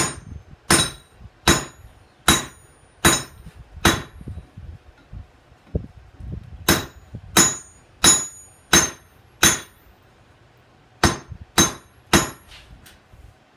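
Hand hammer striking a hot railroad spike on an anvil, each blow ringing sharply, in three runs of about five blows, roughly one every 0.7 s, with short pauses between runs. The steel is being drawn out to thin the neck of a forged bearded axe head.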